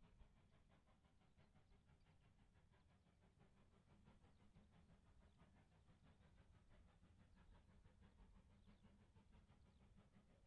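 Faint, distant steam locomotive working a goods train, its exhaust beats coming as a quick, even chuffing over a low rumble.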